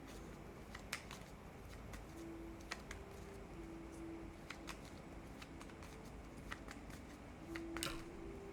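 Tarot cards being handled, with scattered soft clicks and snaps of card stock, over a faint low hum that comes and goes.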